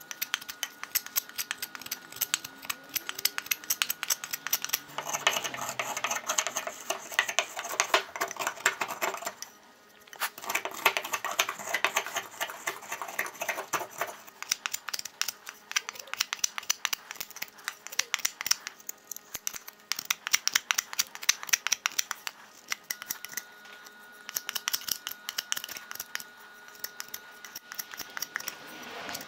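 A knife shaving a wooden hatchet handle: a fast, dense run of scraping clicks as the blade takes off curls of wood, briefly easing off about ten seconds in.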